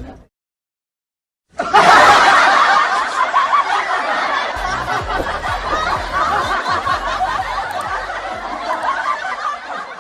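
Laugh-track sound effect: a crowd of people laughing together, starting suddenly about a second and a half in and slowly dying away.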